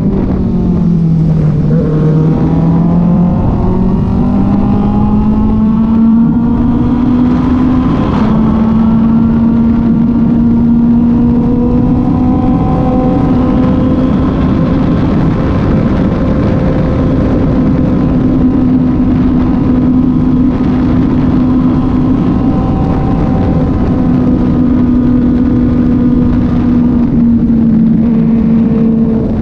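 Kove 450RR motorcycle engine under way. Its note drops about a second in, climbs back over the next few seconds, then holds a fairly steady cruising pitch with small rises and dips.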